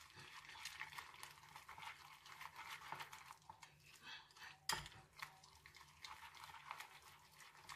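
Wire whisk stirring a thick egg-and-vegetable batter in a glass bowl: faint, quick scrapes and clicks, with one sharper knock a little past halfway, likely the whisk striking the bowl.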